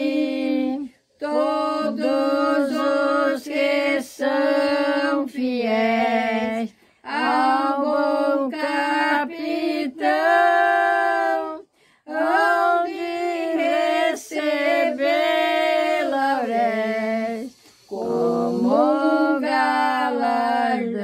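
An elderly woman singing a Portuguese hymn unaccompanied, slowly and in long held notes, with short pauses for breath between phrases.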